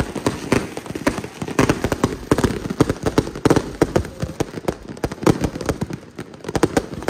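Fireworks going off all around, a dense, irregular run of sharp pops and crackles several times a second.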